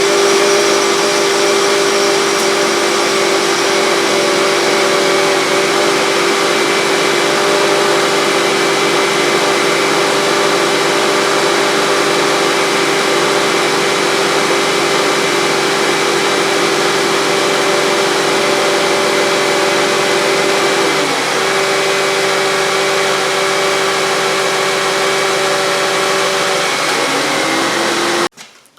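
2009 Honda Accord's 2.4-litre four-cylinder engine idling just after its VVT spool valve gasket was replaced, a steady hum with a whine; the pitch dips briefly about three-quarters of the way through and again near the end.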